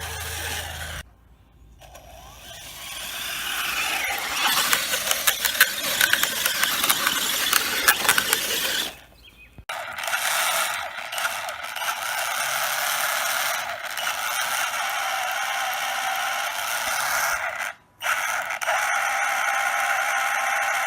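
Axial Yeti RC car's drivetrain and Hot Racing two-speed transmission whining as it spins up, with repeated sharp pops and clicks in the first half. Then it settles to a steadier whine. The popping is what the owner puts down to the new transmission.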